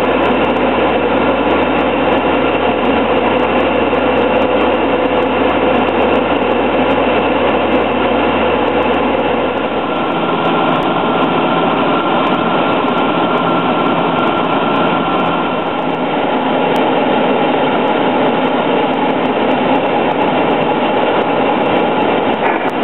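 Robin DR400 light aircraft's four-cylinder piston engine and propeller running steadily in cruise, with airflow noise, heard inside the cabin. The engine's low note changes about ten seconds in.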